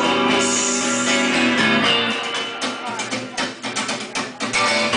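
Live rock band playing an instrumental passage between sung lines: guitars holding chords, then a run of sharp, quick strummed chords in the second half.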